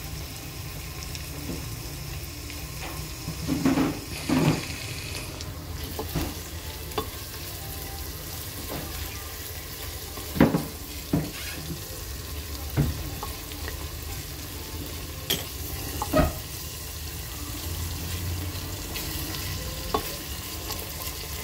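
Food sizzling as it fries in a pan while being stirred, with a utensil knocking against the pan several times at irregular moments.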